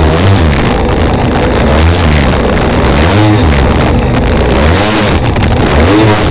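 Polaris Pro 785 personal watercraft's two-stroke engine running hard over choppy waves, its pitch swinging up and down several times as the throttle and load change from wave top to wave top.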